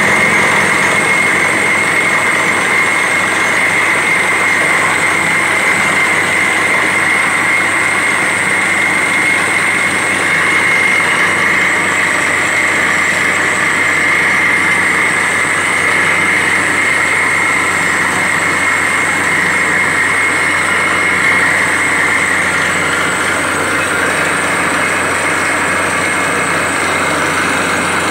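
Truck-mounted borewell drilling rig drilling, running with a loud, steady noise as compressed air blows rock dust and cuttings up out of the bore.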